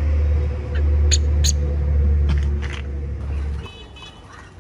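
A steady low rumble with a faint hum, which cuts off suddenly near the end, under a few light clicks and taps. A short high squeak follows.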